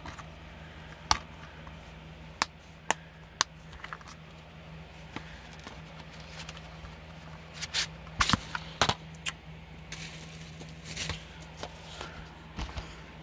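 Plastic Blu-ray cases being handled: scattered sharp clicks and taps, a few in the first seconds and a cluster a little past the middle, over a faint steady hum.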